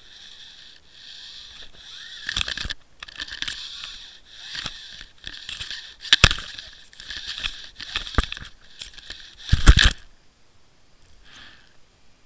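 Underwater camera housing dragging through kelp and over a rocky bottom: irregular crackling and scraping with four sharp knocks, the loudest about ten seconds in.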